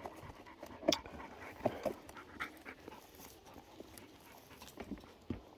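A dog panting close by, with scattered soft taps and rustles coming at uneven intervals.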